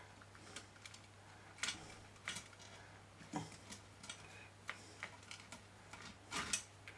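Irregular small clicks and taps of hands handling wires and small parts on a workbench, over a steady low electrical hum.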